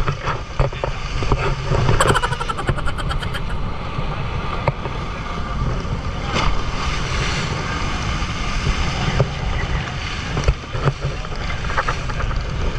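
Fishing boat under way at sea: a steady engine drone with wind and water noise, and a short run of rapid ticking about two seconds in.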